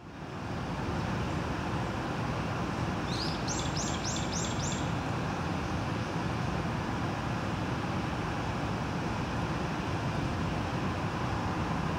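Steady rushing background noise, with a bird giving a quick run of five high chirps about three seconds in.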